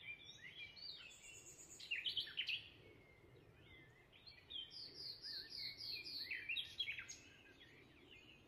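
Small birds chirping and singing, with quick, varied chirps and, midway, a run of about six repeated falling notes.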